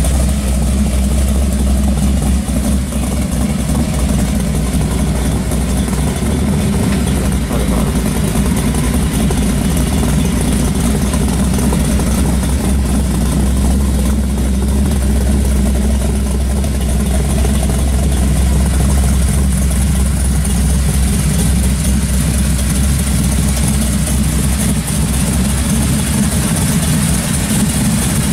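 1970 Chevrolet Chevelle SS pro street's V8 engine idling steadily through its exhaust.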